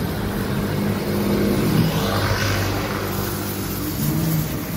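Street traffic: a motor vehicle's engine running steadily, with the noise of a passing vehicle swelling and fading about halfway through.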